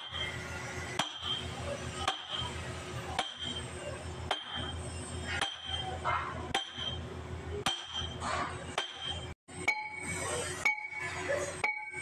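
Hammer striking steel in slow, even blows, about one a second, each a sharp metallic clink with a short ring. The ring drops to a lower pitch for the last few blows. A steady low hum runs underneath.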